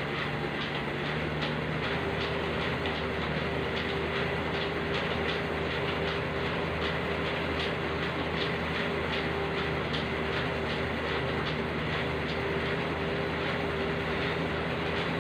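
Elliptical cross-trainer in use: a steady whir from the flywheel with a held tone, and rhythmic clicking as the pedals and handles cycle.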